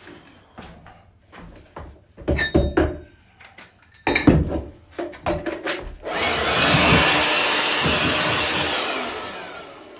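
Handling knocks and clatters, then a power drill running steadily for about three and a half seconds as it bores a starter hole through the plywood floor, winding down near the end.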